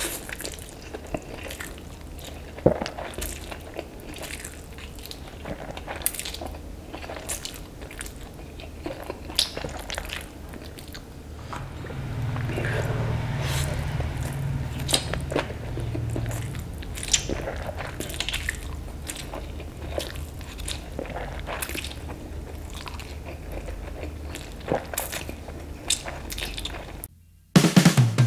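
Close-miked eating of instant noodles and tahu tek: wet slurping, chewing and many sharp mouth clicks and smacks, with a low hum for a few seconds midway. Near the end the eating cuts off and music starts.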